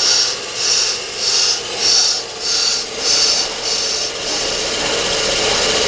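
Accuturn brake lathe resurfacing a brake drum: the cutting bit scrapes across the spinning drum's surface with a hissing, rasping sound that swells and fades a little under twice a second, over the lathe's steady running hum.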